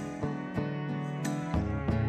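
Instrumental background music, with a steady run of pitched notes.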